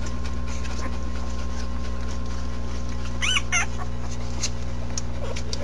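Newborn puppies squealing: two short high-pitched squeals about three seconds in and a faint squeak near the end, over a steady low hum.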